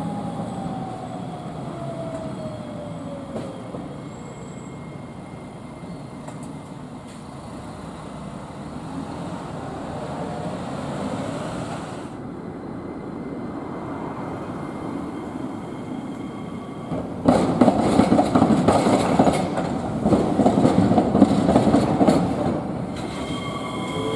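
Iyotetsu Moha 5000 tram on street track: its motor whine falls as it slows at the start, then from about 17 seconds in its wheels clatter loudly over rail joints as it rolls close past. Near the end the motor whine starts to rise as it picks up speed.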